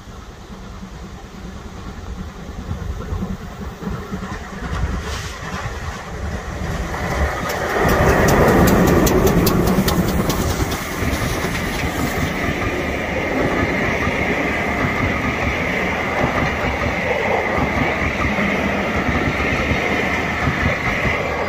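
GWR steam locomotive 9351 approaching and passing at close range with a train, growing louder until it goes by about eight seconds in. The coaches then roll past, wheels clattering over the rail joints.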